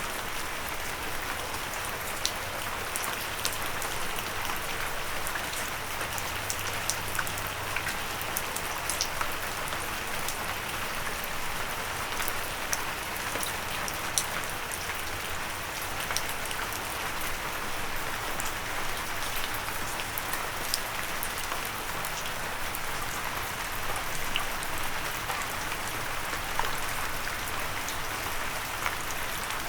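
Steady rain falling, with many small sharp drop impacts ticking on a windowsill.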